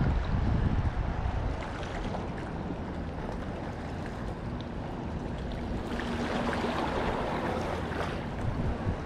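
Ocean waves washing over shoreline rocks, with wind buffeting the microphone; the wash swells louder about six seconds in. A faint steady hum sits underneath in the second half.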